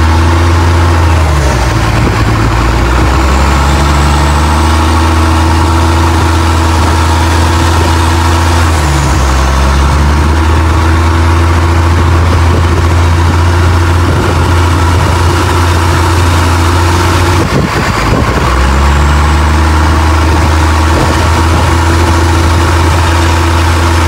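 Motorboat engine running steadily under way, with water rushing past the hull. The engine note dips briefly a few times, most sharply about two-thirds of the way through.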